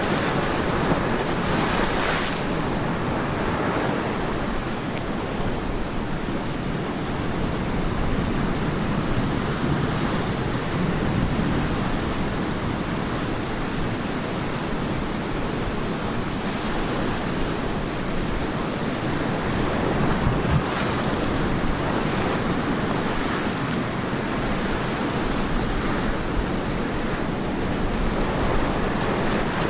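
Ocean surf breaking and washing onto the beach, a steady rush with waves swelling up now and then, and some wind on the microphone.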